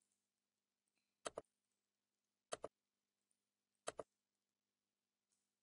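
Computer mouse clicking over near silence: three short double clicks, about a second and a quarter apart.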